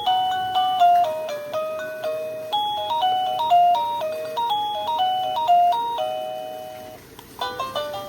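Electronic doorbell chime playing a melody ringtone in plain electronic tones, each note dying away quickly. The tune fades out about seven seconds in, and the next ringtone's melody starts just after.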